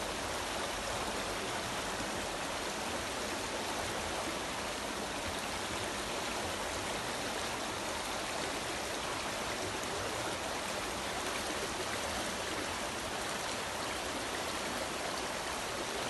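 Stream water running and splashing in a steady, unbroken rush.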